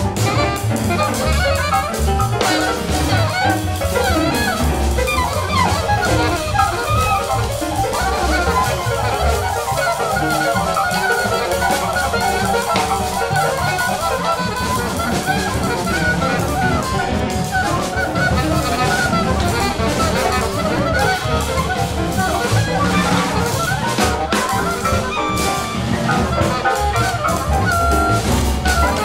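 Free jazz played by an alto saxophone, piano, bass and drums quartet, in a dense, busy passage with cymbals throughout.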